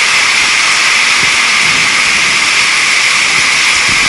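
Heavy rain falling on a tin roof, heard from inside the house as a loud, steady hiss.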